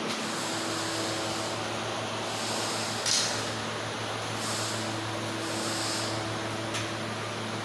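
Compressed air hissing in short bursts, several times, over a steady low machine hum; the sharpest and loudest burst comes about three seconds in.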